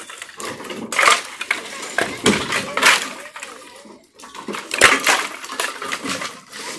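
Dry firewood sticks clattering and knocking against each other as they are tossed off a truck bed onto a woodpile, in irregular bursts.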